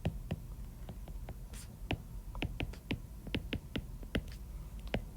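A writing tool on a surface making a series of irregular short ticks and taps, about twenty in five seconds. A steady low hum runs underneath.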